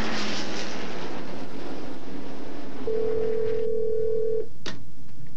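Stock-car race-track noise fades out. A telephone ring tone then sounds once, steady for about a second and a half, and is followed by a click as the handset is picked up.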